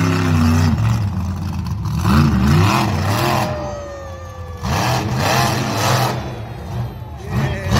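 Monster truck's engine revving hard, its pitch rising and falling again and again as the truck charges and wheelies, with a thin falling whine about halfway through.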